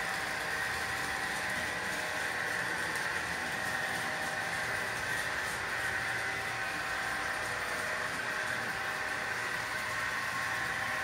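Model railway diesel shunting locomotive giving a steady, unchanging mechanical hum.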